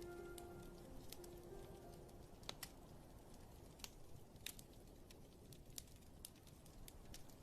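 Quiet fireplace crackle, with irregular sharp pops over a soft, steady rain-like hiss. The last held piano notes die away in the first second or so.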